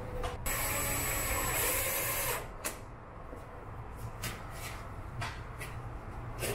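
Double-sided adhesive tape being peeled with a rasping hiss for about two seconds, then a few light clicks and taps as the plastic side-skirt overlay is handled.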